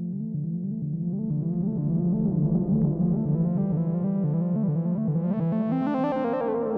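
Synthesizers and keyboards playing live: a held low note under a fast repeating pattern of higher notes, growing fuller and brighter about five seconds in.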